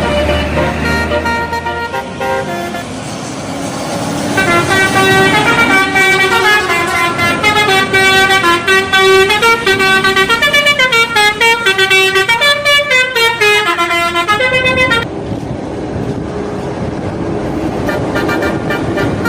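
Bus telolet horn, a set of multi-trumpet air horns, playing a quick tune of stepping notes that rise and fall, starting about four seconds in and cutting off about fifteen seconds in. Bus engine and road noise fill the rest.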